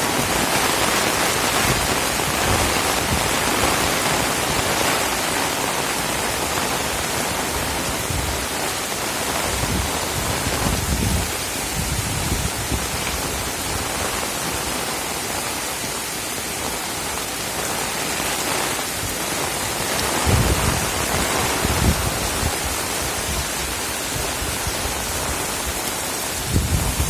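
Heavy rain falling steadily as an even, dense hiss, with a few brief low rumbles.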